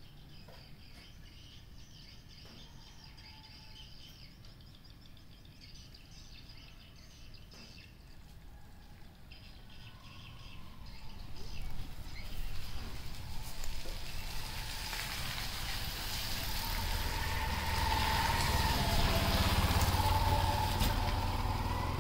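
Quiet outdoor ambience with faint bird chirps, then from about halfway a rushing noise with a low rumble that grows louder and holds steady.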